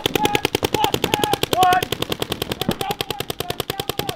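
Paintball markers firing rapid streams of shots, more than ten a second, several guns overlapping into one continuous rattle.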